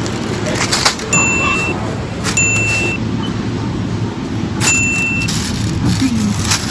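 Three short electronic beeps, each one steady high tone lasting about half a second, a second or two apart. They are a video-editing sound effect marking each on-screen caption as it pops up, heard over a steady low hum.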